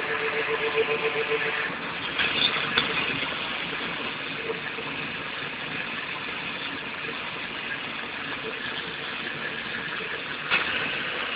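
Pneumatic cone-tube pointing machine running: its die head spins with a pulsing hum for the first couple of seconds while a small metal tube is held against it, then runs on steadily with a couple of clicks, and a short louder burst comes near the end.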